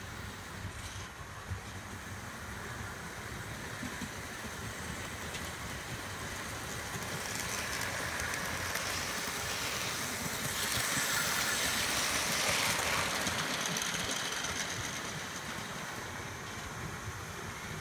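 Model railway diesel locomotive hauling a rake of coaches past: the running noise of its motor and wheels on the track builds, is loudest for a few seconds past the middle, then fades away.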